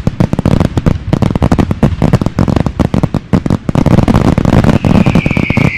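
A string of firecrackers going off in a rapid, continuous crackle of bangs, with a falling whistle near the end.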